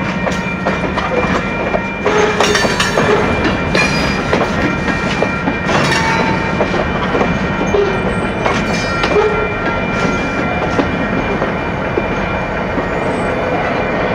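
Freight wagons rolling slowly past on jointed track, the wheels clicking and clanking with occasional squeals, over the low running of diesel locomotive engines. Louder clanks come in clusters, around two seconds in and again around six seconds in.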